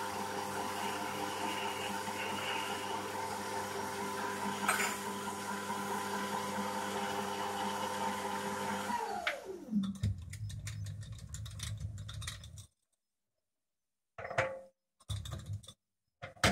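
Small metal lathe running with a steady motor whine, switched off about nine seconds in, its pitch falling as the spindle winds down. After a silent gap come a few short knocks and clicks of tooling being handled on the lathe.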